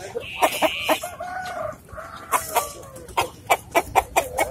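Rooster clucking in quick, sharp calls throughout, with a few longer, drawn-out calls in between.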